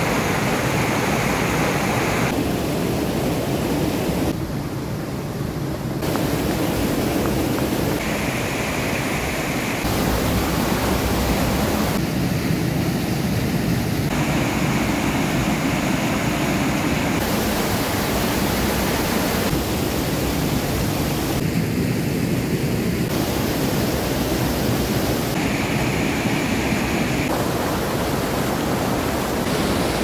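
Loud, steady rushing of a waterfall, its tone changing abruptly every few seconds.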